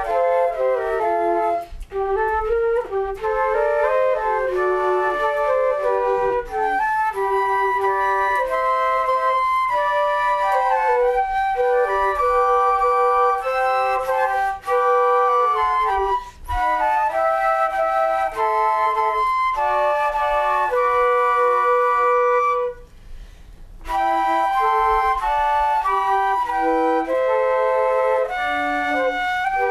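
Instrumental music led by flute, several melodic parts playing together in sustained notes, with a brief pause about 23 seconds in.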